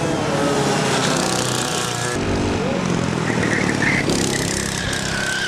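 Several racing go-kart engines running at high revs as the karts take a corner in turn, their pitch rising and falling, with an abrupt change in the sound about two seconds in.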